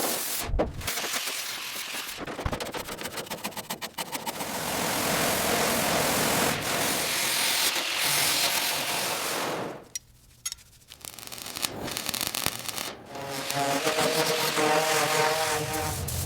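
Car-body restoration tool noise in several cut segments: quick repeated scraping strokes, then a long steady rushing noise, a brief silent break about ten seconds in, and near the end a power tool running with a steady whine.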